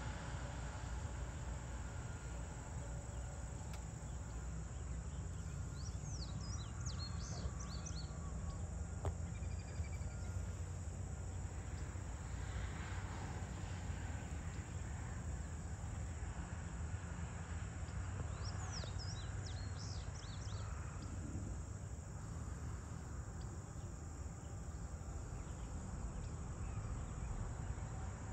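Evening outdoor ambience: a steady low rumble with a constant chorus of insects. A bird sings a short phrase of quick sweeping notes about six seconds in and again about nineteen seconds in.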